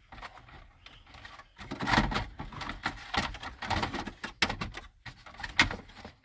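Irregular clicks and knocks of plastic dash trim and the stereo being handled and pushed into place in the dash opening, with the loudest knocks about two seconds in and near the end.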